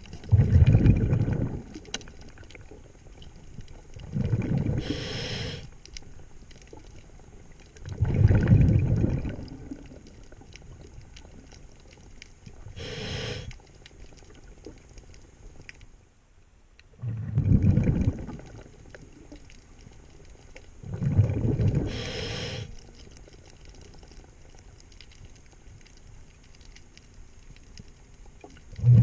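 A diver's breathing regulator underwater: a breath about every four to five seconds, each exhale a low rush of bubbles and each inhale a higher hiss through the regulator.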